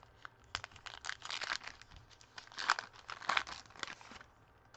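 Crinkling and tearing of a Topps baseball card pack's plastic-foil wrapper being handled and opened by hand, in irregular crackles that stop a little after four seconds in.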